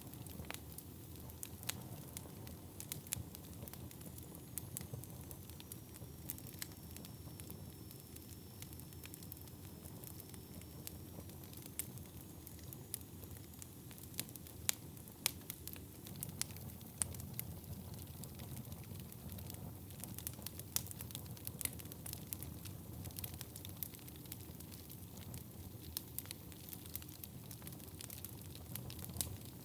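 Wood fire burning in a fireplace: a steady low rumble of flames with frequent irregular crackles and sharp pops. A faint high whistle dips and rises for several seconds in the first half.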